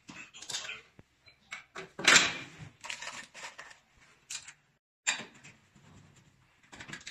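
Knocks and clatter of sheet-steel shelving parts being handled and fitted together, a series of separate sudden hits with the loudest about two seconds in.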